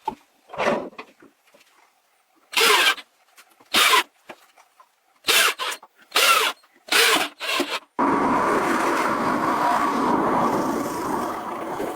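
Wood being worked: about seven short scraping strokes, then a power tool starts abruptly about eight seconds in and runs steadily.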